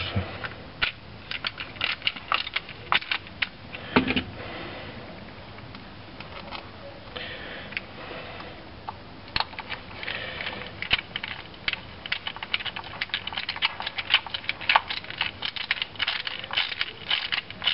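Quick small metal clicks and taps from a screwdriver and screws as the cover screws of a mechanical fuel pump are set in and turned. The clicks are sparse at first and come thick and fast over the second half.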